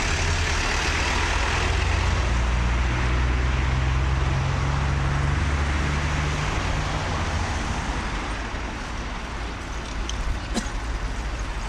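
Heavy vehicle's engine running close by with a loud low rumble that eases off after about seven seconds, leaving steady street traffic noise.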